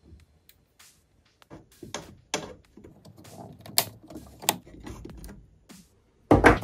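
Diagonal cutting pliers snipping and clicking against the metal parts of a stereo amplifier's open chassis: an irregular string of sharp clicks and snaps, with the loudest clatter near the end.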